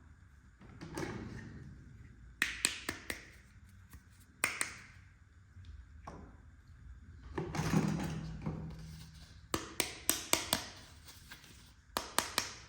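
Small plastic toy kitchen pieces being handled: several quick runs of light clicks and taps, with two stretches of rustling in between.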